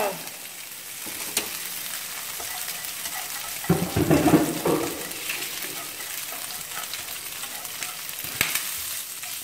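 Diced pork fat with skin frying over low heat in a nonstick pan as it starts to render: a steady light sizzle with scattered small pops. A louder burst of sound stands out about four seconds in.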